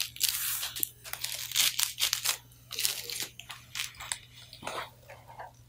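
A run of short, irregular crackling and rustling noises from a patient being moved and adjusted on a chiropractic table, over a steady low hum.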